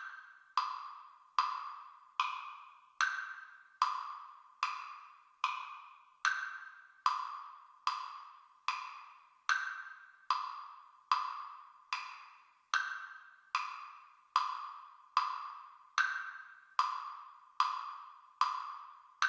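Metronome clicking steadily at about 75 beats a minute, every fourth click accented with a higher pitch to mark the first beat of each bar.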